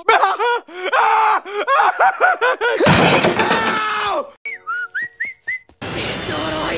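Edited cartoon meme audio: a quick run of short, high voiced syllables, then a cartoon man's loud yell about three seconds in. A few short whistled notes follow, and a loud harsh noise begins near the end.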